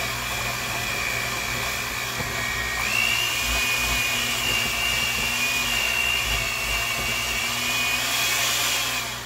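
Electric hand mixer running steadily, its beaters working a thick peanut butter dough in a glass bowl. The motor whine steps up in pitch about three seconds in and cuts off near the end.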